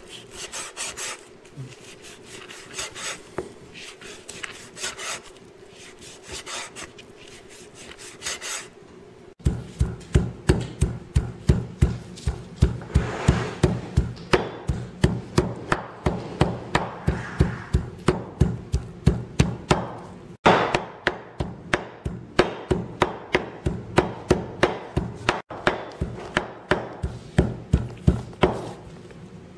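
Cleaver chopping salted fish on a round wooden chopping board. Lighter, slower strokes at first, then about a third of the way in, rapid, even mincing at roughly three strokes a second.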